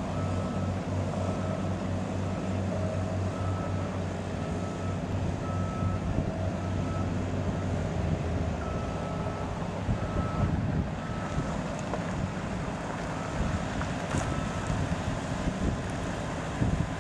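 Steady low machinery hum with wind on the microphone, and a high beeper sounding short repeated beeps in runs with pauses.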